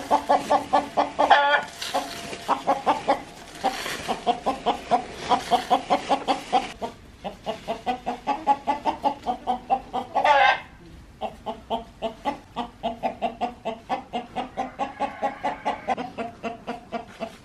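A flock of domestic hens clucking in quick, repeated clucks, about three or four a second, with a single louder, drawn-out call about ten seconds in.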